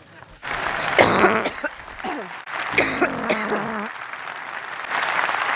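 Conference audience applauding, starting about half a second in and swelling again near the end. Two coughing sounds are laid over the applause, one about a second in and a longer one around three seconds in.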